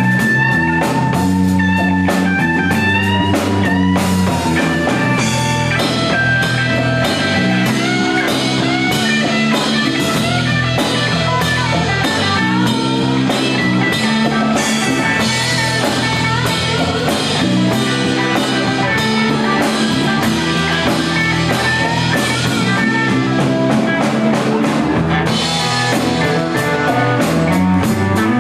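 Live rock band playing loudly: electric guitars and bass over a drum kit keeping a steady beat.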